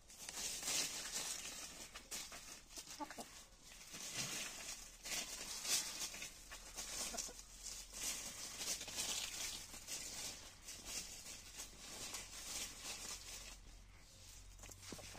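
Lohmann Brown hens scratching and rustling through dry leaf litter and soil under garden plants, a run of uneven scratchy strokes, with an occasional soft cluck.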